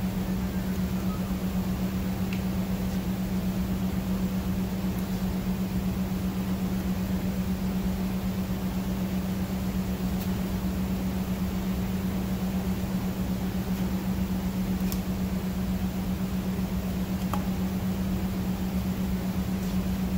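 A steady mechanical hum with a few faint clicks.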